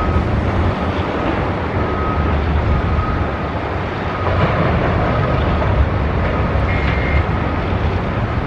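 Caterpillar 773G rigid off-highway dump truck's C27 V12 diesel engine running steadily as it drives. A backup alarm beeps faintly about once a second behind it.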